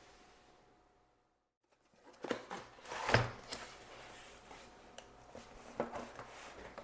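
Cardboard keyboard box being handled and opened: rubbing and scraping of cardboard and packaging, with several knocks and clicks, the loudest about three seconds in.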